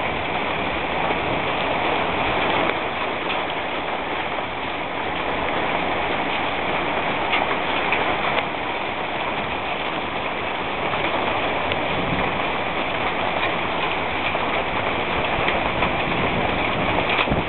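Hailstorm: hail and heavy rain pelting down on the ground and the surfaces around the porch, a steady dense hiss with occasional sharper ticks.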